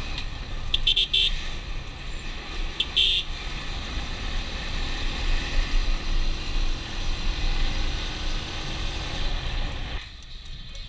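Motorbike riding in heavy city traffic: steady wind and engine rumble, with two short horn beeps about two seconds apart near the start. The rumble drops off sharply near the end.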